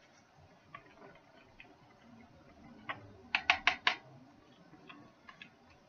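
Light clicks and taps of plastic soap-batter containers being handled, with a quick run of four sharp knocks about three and a half seconds in.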